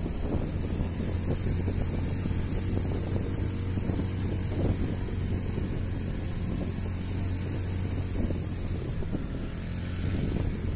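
Honda Beat scooter's small single-cylinder engine running steadily under way, with wind noise on the microphone.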